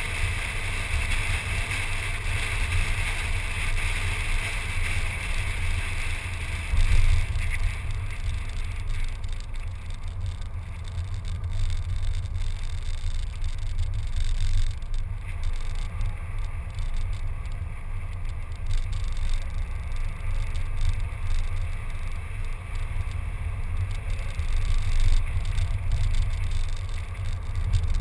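Car driving on town roads, heard through a bonnet-mounted action camera: a steady low rumble of wind on the microphone with road and tyre noise. A higher hiss fades out about seven seconds in.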